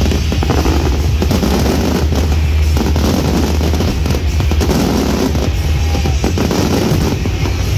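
Aerial fireworks shells bursting in quick succession, many sharp booms and crackles close together, over loud music with a heavy steady bass.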